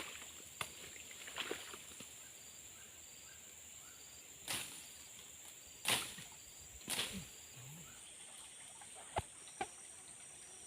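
Quiet outdoor ambience with a steady high-pitched insect drone, a few brief rustles and two sharp clicks near the end.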